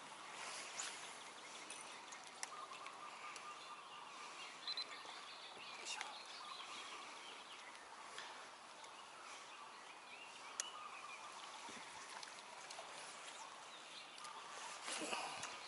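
Quiet outdoor ambience with faint bird calls and a few separate sharp clicks.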